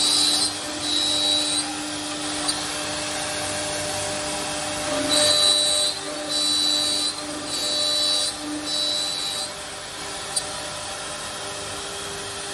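Four-head CNC mortise milling machine (Woodmaster WM-1500C4) cutting mortises into wooden chair parts: its router spindles run with a steady hum, and each cutting pass into the wood adds a short high whine. There are two such passes near the start, a pause of a few seconds, then four more in quick succession.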